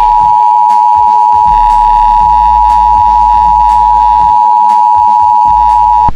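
Emergency Alert System attention signal: a loud, steady two-tone alarm with both pitches sounding together, held unbroken and cut off sharply near the end.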